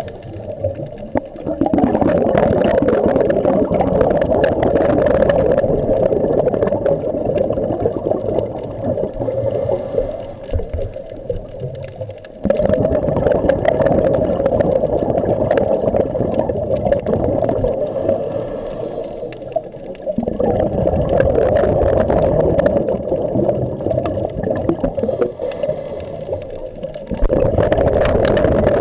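Scuba diver's breathing heard underwater: long surges of rushing, gurgling exhaled bubbles about every eight seconds, each preceded by a short high hiss of the regulator on the inhale.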